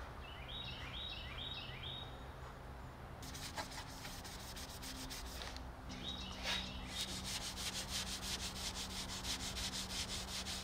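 Hand-sanding a varnished wooden hatch frame with an abrasive pad, scuffing the varnish between coats: a fast, even run of rubbing strokes that starts about three seconds in. Birds chirp in quick series near the start and again briefly midway.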